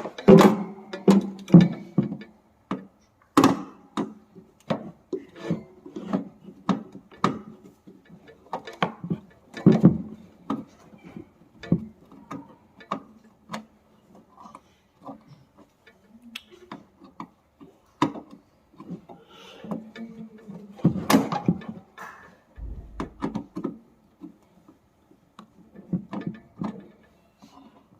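Irregular clicks, knocks and rattles of tools and loose parts being handled as an electric room heater is dismantled, with a denser, louder clatter about 21 seconds in.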